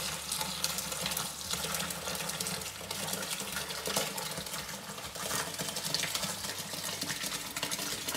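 Fermented plum must, juice with pulp and whole plums, pouring from a plastic bucket into a straining bag in a second plastic bucket: a steady splashing pour with short splats of fruit landing here and there.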